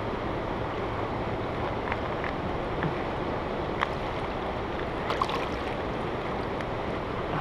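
Shallow stream water running over rocks in a steady wash, with a couple of light clicks about four and five seconds in.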